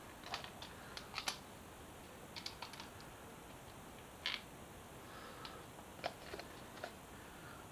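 Faint scattered clicks and taps as a motorcycle fairing trim piece is handled and fitted by hand, over a low steady hiss.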